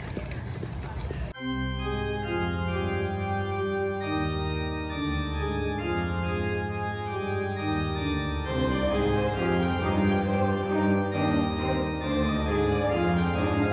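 Organ music playing held chords. It starts abruptly about a second in, cutting off a brief stretch of noisy sound.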